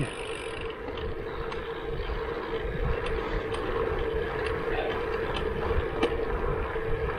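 Bicycle rolling on asphalt: a steady tyre hum with a constant tone, over the rumble of wind on the microphone, and a few faint ticks.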